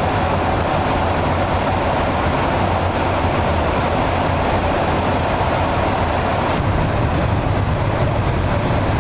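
Steady in-flight cabin noise inside a KC-135 Stratotanker's boom operator station: an even rush of airflow over a low engine drone.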